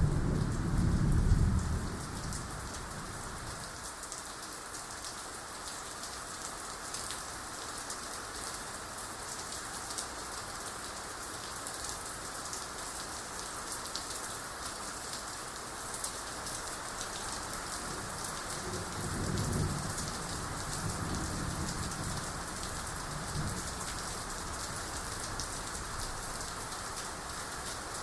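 Steady heavy rain, with a low rumble of thunder at the start and again about twenty seconds in.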